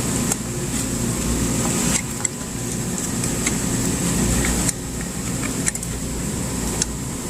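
A steady low mechanical hum with a thin high whine, broken by a few small clicks and taps as the old start capacitor is taken off the compressor terminals.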